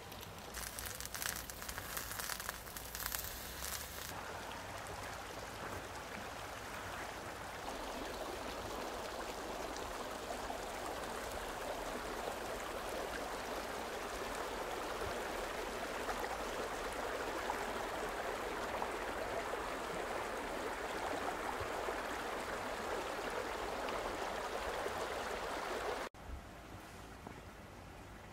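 Thick ribeye steak sizzling on a covered grill pan, a steady hiss. A few sharp clicks come in the first few seconds, and the sizzle cuts off suddenly about two seconds before the end.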